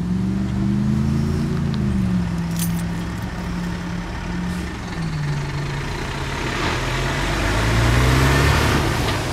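Diesel engine of a tanker truck approaching and driving across a railroad crossing. Its pitch drops twice, then climbs near the end as the truck pulls through and passes close.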